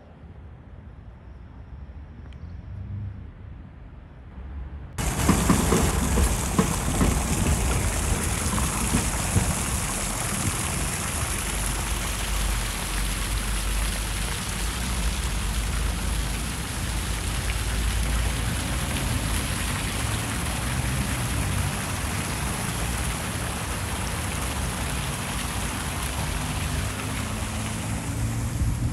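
Public fountain's water jets splashing into its basin, a steady rush of falling water that starts abruptly about five seconds in; before that, only a low traffic rumble.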